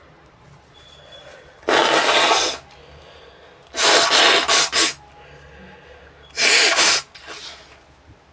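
A person blowing their nose hard three times: three loud, blocky blasts of air each lasting under a second, the middle one broken into several short pulses.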